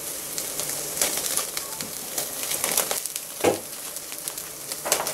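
Rib-eye steak sizzling on a grill grate over a glowing infrared ceramic burner: a steady crackling hiss with scattered sharp pops. A brief, louder low-pitched sound stands out about three and a half seconds in.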